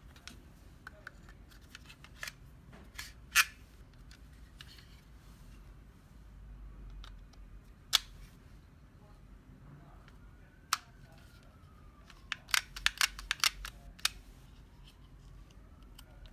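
Hard plastic clicks and clacks of a 3M EPX Plus II applicator gun being handled while a Scotch-Weld dual-barrel adhesive cartridge is snapped into it. There are single sharp clicks about 3 s and 8 s in, another near 11 s, and a quick run of clicks between about 12 and 14 s.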